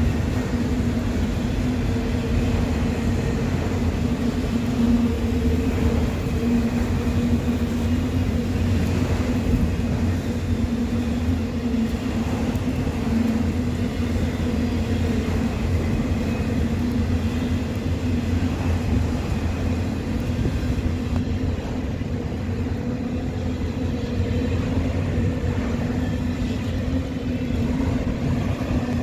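Long autorack freight train rolling past, a steady low rumble with a steady hum over it.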